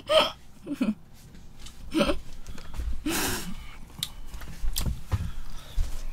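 A woman laughing in short, breathy bursts, with a few sharp taps or clicks about four to five seconds in.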